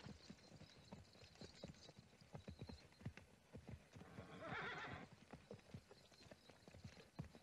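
Faint, irregular hoof falls of several horses walking, with a short, louder burst of a horse's call or blow about four and a half seconds in.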